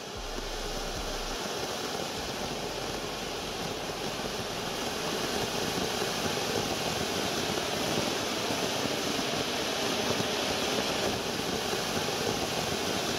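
Giant firework fountain (anar) spraying a tall column of sparks, with a steady rushing hiss that swells a little as it burns.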